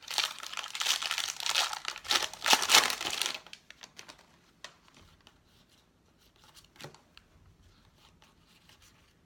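A baseball card pack wrapper being torn open and crinkled for about three and a half seconds, then faint rustles and ticks of cards being handled.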